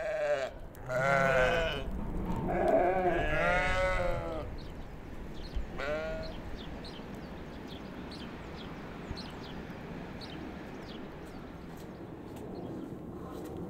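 Sheep bleating: about four wavering calls in the first six seconds, then only a steady background hiss with faint, short high ticks.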